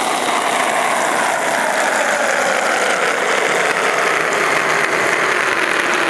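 Water pouring into the tub of a Magic Chef top-load washing machine as it fills, heard from inside the tub: a steady rushing noise with a band that slowly drops in pitch as the water rises.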